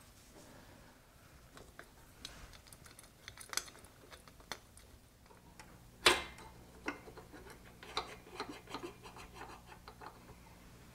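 Scattered light metallic clicks, taps and scrapes of hand work on a motorcycle carburetor, as the throttle slide with its spring and needle is lowered into the carburetor body and located with a small hook. The sharpest click comes about six seconds in.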